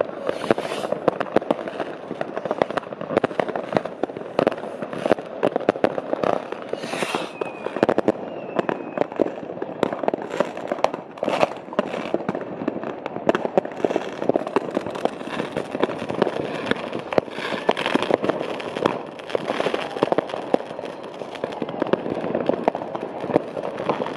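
Consumer fireworks and firecrackers set off all around: a dense, unbroken crackle of bangs and cracks, with a short hiss about 7 seconds in.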